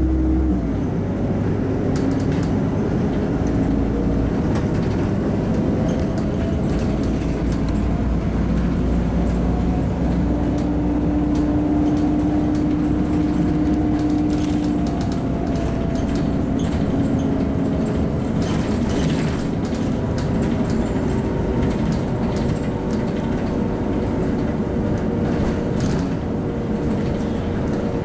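Cabin sound of a LiAZ-5292.65 city bus on the move: the drivetrain hums and whines over road rumble, the whine sliding up and down in pitch as the bus speeds up and slows. Scattered rattles and clicks from the body and fittings, more of them in the second half.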